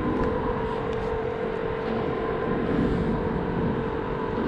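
A steady motor hum with a constant tone that does not change in pitch or level.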